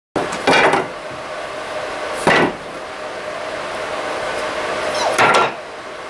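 Wooden boards set down and slid on a wooden workbench: three short knocks with scrapes, the first about half a second in, the second a little after two seconds and the last near the end.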